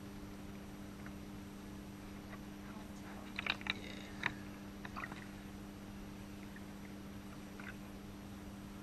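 Shallow bathwater sloshing and splashing as hands wash a puppy in a bathtub, with a few small sharp splashes about three to four seconds in and another near five seconds, over a steady low hum.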